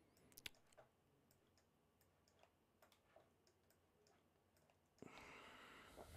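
Near silence broken by a few faint, scattered mouse clicks, then a soft breath in near the end.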